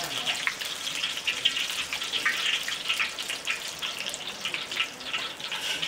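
Chakali dough frying in hot oil in a kadai: a steady, dense crackling sizzle.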